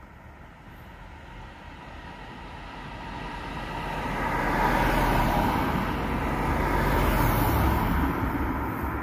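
A car driving past, its engine and tyre noise building over a few seconds to a peak in the second half, then starting to fade near the end.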